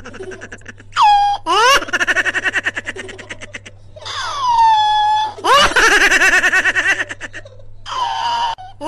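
High-pitched laughter in rapid pulsing bouts of 'ha-ha-ha', its pitch sliding up and down, in about five bursts with short breaks between them.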